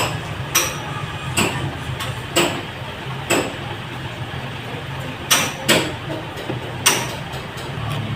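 Sharp knocks or clicks, about eight at uneven intervals, with two close together about five seconds in, over a steady low hum.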